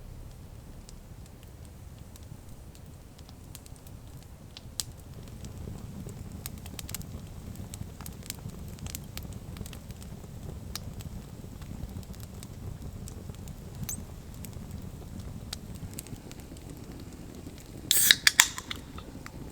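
Wood fire crackling, with scattered pops over a low steady noise, and a louder cluster of sharp cracks near the end.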